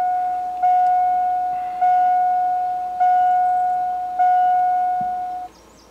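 A 2002 Chevrolet Silverado's dashboard warning chime sounding after the key is turned on. It is a steady electronic ding, struck again a little more than once a second and fading between strikes, and it stops shortly before the end.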